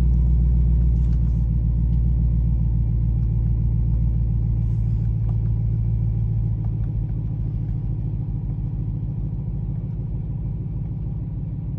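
Jeep Grand Cherokee engine idling steadily after start-up, its level gradually easing down.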